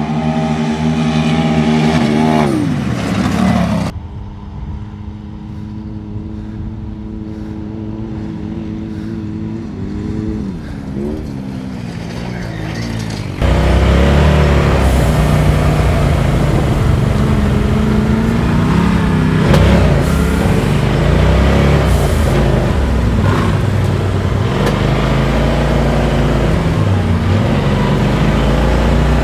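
Side-by-side UTV engines. First two machines race toward and past, and their engine note drops sharply as they go by. Then an engine runs more quietly and steadily, and from about halfway through the close, louder engine of a UTV being driven on a dirt trail revs up and down.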